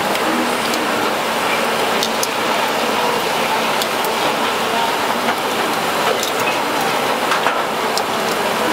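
Seafood sizzling on a hot grill, a steady hiss with scattered crackling pops.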